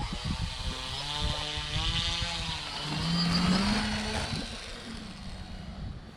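Electric RC airplane's motor and propeller running as the plane flies past, the pitch wavering, then rising with the throttle and loudest about three and a half seconds in before fading. Wind buffets the microphone throughout.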